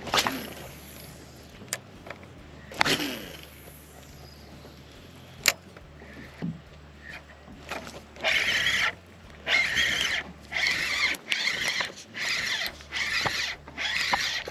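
Fishing reel being cranked, a whirring in even bursts a little faster than once a second from about eight seconds in, as a small catfish is reeled in. Earlier, a few sharp clicks and knocks.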